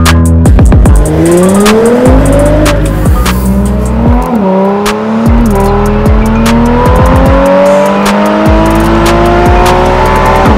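Audi S5 Sportback's turbocharged 3.0-litre V6 accelerating hard under full throttle, heard from inside the cabin, its pitch rising steadily with a drop at an upshift a little over four seconds in. Music with a steady beat plays over it.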